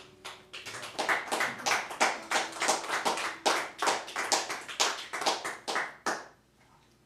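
Small audience clapping at the end of an acoustic song, the last acoustic guitar chord dying away as the applause begins. The applause stops a little after six seconds in.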